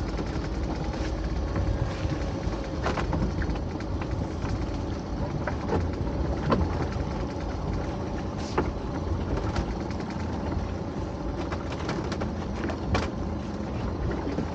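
A small boat's motor running steadily, with scattered sharp knocks and clicks of gear being handled on board.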